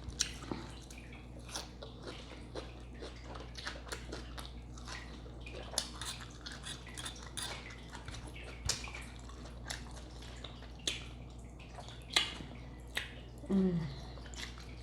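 Close-miked eating of a crunchy salad: irregular crisp clicks of chewing and of a fork tapping the dish, over a steady low hum. About a second before the end comes a short, low vocal sound that falls in pitch.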